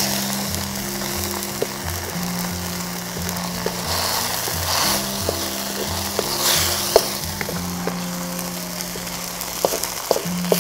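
Background music with a repeating bass line over the steady sizzle of green chili spice paste and shredded chicken frying in oil, with a few sharp clicks scattered through.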